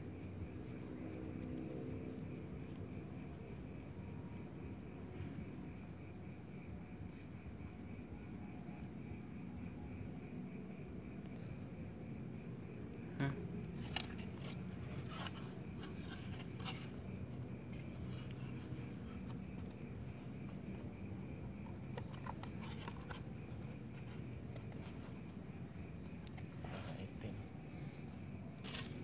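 Crickets chirping in a continuous, rapid, high-pitched trill. A few soft knocks and scrapes come through around the middle and again near the end.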